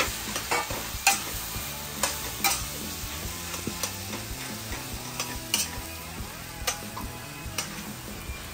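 Spatula stirring coarsely ground chana dal in a kadhai of hot mustard oil: irregular scrapes and knocks of the spatula against the pan over a steady sizzle from the frying.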